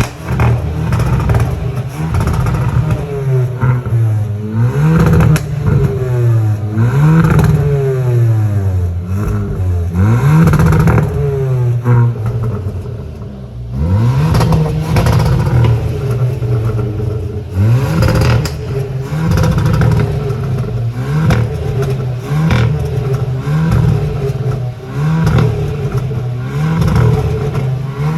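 Hyundai i20 N's 1.6-litre turbocharged four-cylinder engine revved again and again through its exhaust. Each blip climbs in pitch and falls back, about a dozen times, with a short lull in the middle.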